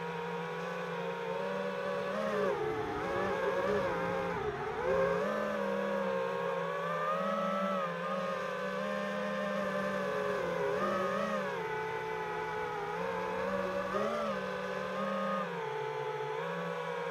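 Five-inch FPV quadcopter's brushless motors and propellers whining, the pitch rising and falling with the throttle through flips and rolls.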